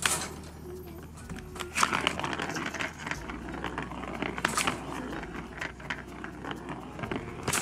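Irregular rustling and light clicks and knocks as a kitten moves about in a wire cage and paws out through the bars, with sharper clusters of clicks about two, four and a half and seven and a half seconds in.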